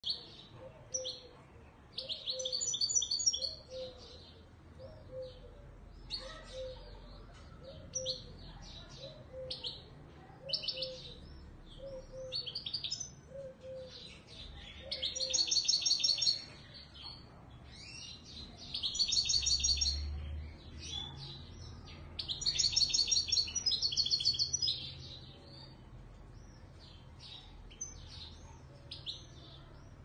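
Moroccan Widani Marrakchi goldfinch singing: quick twittering phrases and fast trills, broken by several louder, longer runs of song lasting a second or two each.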